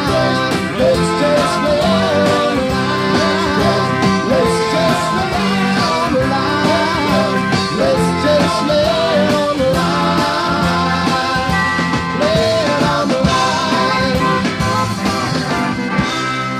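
Country-rock band playing the closing bars of a song, with drums, bass and guitars and a wavering melody line above them.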